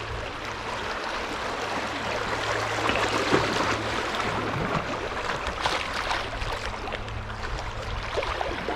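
River water rushing and splashing around a kayak running small rapids, a steady wash with a few sharper splashes in the middle.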